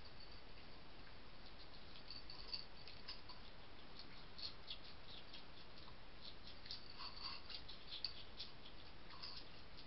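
Hedgehog and cat chewing food at feeding dishes: irregular small crunching clicks, coming thicker through the middle, over a steady faint hiss.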